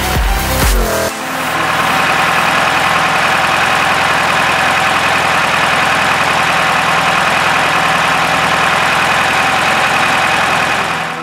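Volkswagen Beetle's freshly rebuilt 1600cc air-cooled flat-four engine idling steadily, starting about a second in.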